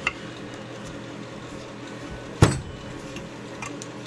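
Open-end wrench clinking on a small brass sensor and the intake manifold it is threaded into, with one sharp metal knock about two and a half seconds in.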